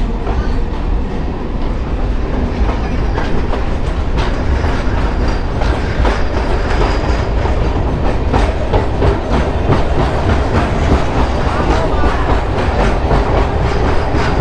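Electric local train running along the track, a steady rumble with the clickety-clack of its wheels over the rail joints.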